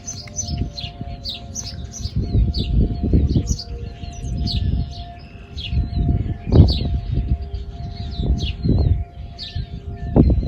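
Small birds chirping over and over, with the faint, steady tone of distant outdoor tornado warning sirens underneath. Bursts of low rumble come and go, the strongest about six and a half seconds in.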